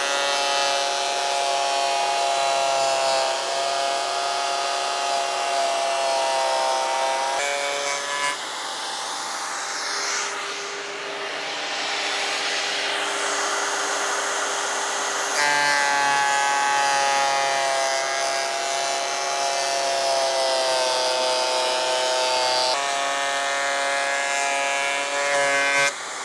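Vevor 12.5-inch benchtop thickness planer running with a steady motor whine that shifts in pitch several times as boards feed through. Through the middle a rougher cutting noise takes over as the cutter head planes a rough-sawn board smooth.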